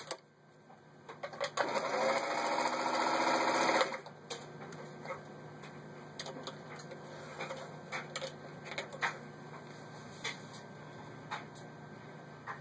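Elna TSP 72C sewing machine running at its fast pedal speed, stitching through four layers of heavy denim. The motor speeds up and runs for about two seconds, then stops suddenly. Light clicks and knocks follow as the denim is pulled out from under the presser foot.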